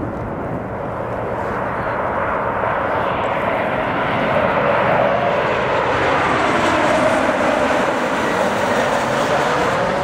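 Embraer ERJ-190-100 airliner's two CF34 turbofans passing low on approach with gear down: a steady jet roar that grows louder over the first half and stays strong, its hum drifting lower in pitch near the end.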